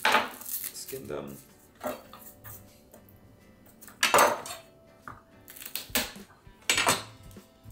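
Chef's knife knocking against a cutting board as garlic cloves are trimmed and crushed under the blade: several sharp knocks spaced irregularly, a second or two apart.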